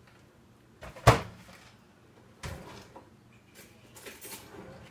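Microwave oven door shut with one sharp clunk about a second in. A softer knock follows, a plate set down on the stovetop, then light clatter from a kitchen drawer being opened and rummaged.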